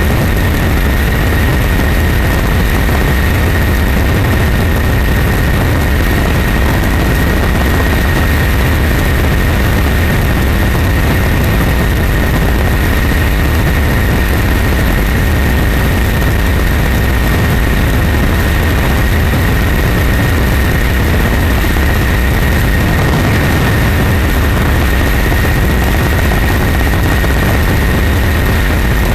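A steady, loud engine drone with a deep low rumble and a constant high whine, unchanging throughout.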